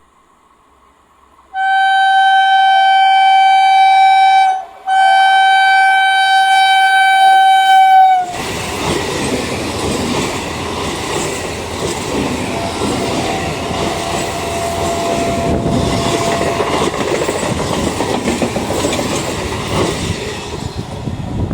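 Indian Railways train horn sounding two long steady blasts of about three seconds each, then the train running past with its wheels clattering over the rails.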